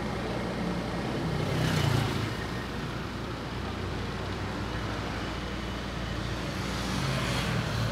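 Road traffic: a steady low rumble, with a vehicle passing by twice, each time swelling and fading over about a second.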